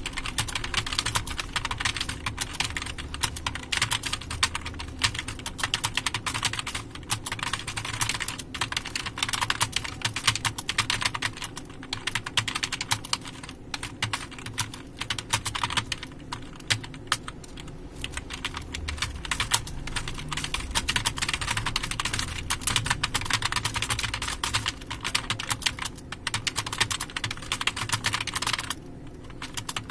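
Fast, continuous typing on a computer keyboard: a dense, uneven patter of key clicks that stops briefly near the end.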